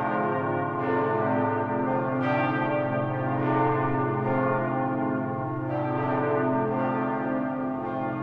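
Church bells pealing: several bells ring together, with a fresh stroke every second or two over the long, overlapping hum of the others.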